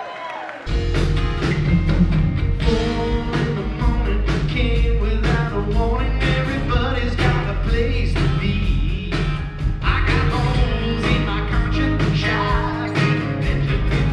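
A rock band playing live: acoustic guitar, electric bass and drums kick in together about a second in, and a man sings lead over them. The songs are played in an acoustic arrangement.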